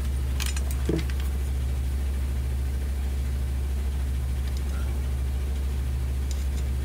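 A steady low hum with a faint pulsing throb on top, and a few light clicks and taps of plastic crossbow parts being handled, one about a second in.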